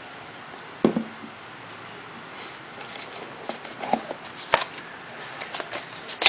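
Hands handling a smartphone and its box packaging: a soft knock about a second in, then scattered small clicks, taps and light rustling.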